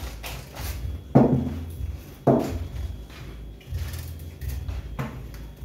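Kitchen handling sounds at a steel sink while vegetables are peeled with a knife: three dull knocks, about one, two and five seconds in, over a low steady hum.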